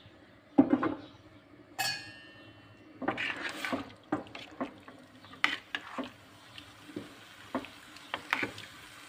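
A metal spoon stirring broth in a steel pot: irregular knocks and scrapes against the pot about once or twice a second. Before the stirring there is a thump just over half a second in and a single ringing metal clink about two seconds in.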